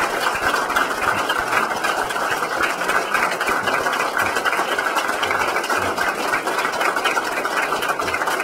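Audience applauding, a dense, steady clapping that goes on without a break.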